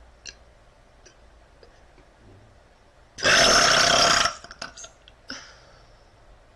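A woman's loud burp: one long belch lasting about a second, starting about three seconds in. A few faint clicks come before and after it.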